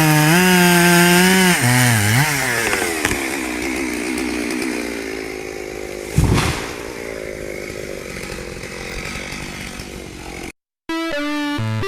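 Chainsaw cutting, its engine pitch dipping and recovering under load, then sliding down and running on more quietly after about two seconds. A single heavy thud about six seconds in. Near the end the sound cuts out and music starts.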